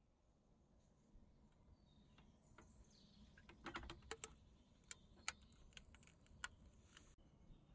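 Faint, scattered light metallic clicks and taps from a small wick-fed camp stove being handled, its hinged metal top and parts fitted by hand, bunched in the middle stretch.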